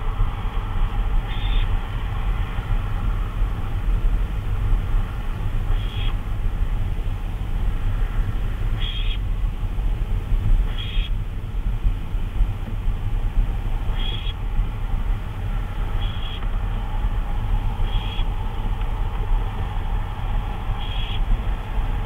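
Barn owl giving about eight short, high calls, a couple of seconds apart, over a steady low hum and hiss.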